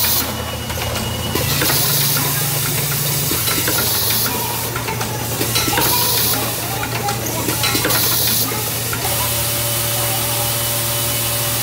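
Automatic assembly and pressing machine with a rotary indexing table running. Pneumatic cylinders release short hisses of air every second or two over a steady motor hum, with light mechanical clicks. The hissing stops after about nine seconds and only the hum carries on.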